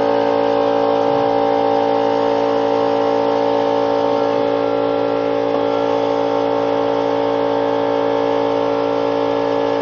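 Steady machine hum made of several fixed tones, a motor running at constant speed with no change in pitch or level.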